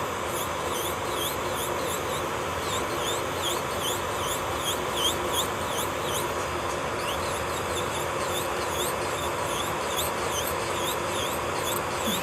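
A steady whirring hiss, like an electric nail drill running, overlaid by a rapid series of short, high squeaky chirps at about three a second.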